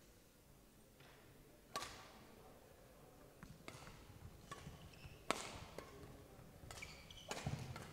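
Badminton rally: a series of sharp racket-on-shuttlecock hits, about one a second, the loudest near 2 s in, heard faintly in a large hall.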